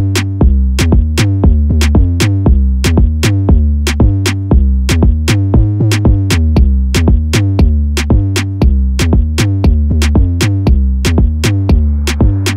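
Electronic dance music with a heavy bass line and a steady beat of sharp drum hits, about three a second. A rising noise sweep comes in near the end.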